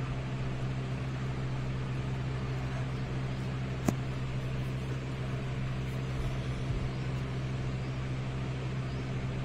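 Steady low hum with an even hiss, with one sharp click just under four seconds in.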